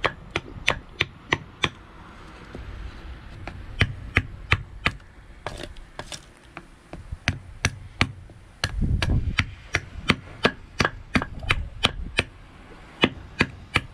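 Large knife chopping into a birch spoon blank held on a wooden chopping block: quick sharp knocks, about three a second, in runs with short pauses. A dull low rumble lasts about a second midway.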